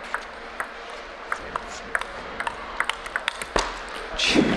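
Table tennis rally: the ball clicks sharply off the paddles and bounces on the table, about a dozen quick clicks at uneven spacing. A louder burst of crowd noise comes near the end as the point finishes.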